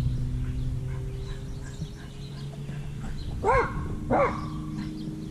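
A dog barking twice in quick succession, over a steady low hum.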